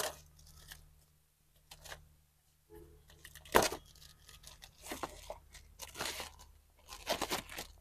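Shiny gift-wrapping paper and packaging being torn open and rustled in a series of short rips, the loudest about three and a half seconds in.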